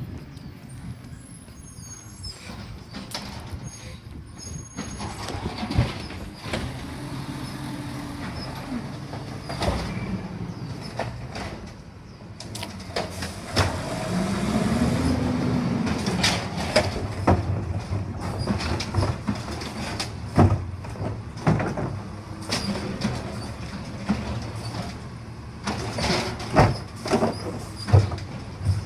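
Waste Management garbage truck running, its engine hum louder from about halfway through, with a brief rise and fall in engine pitch and then a series of sharp knocks and hisses.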